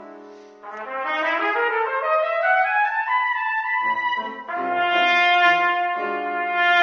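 Solo trumpet playing a melody: a long rising run of notes starting about half a second in, then, after a short break, longer held notes.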